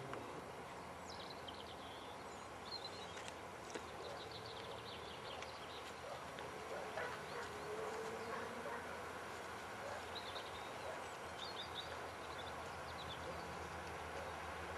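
Quiet open-air ambience with faint small-bird chirps now and then, and a faint drawn-out tone that slides slowly lower about halfway through.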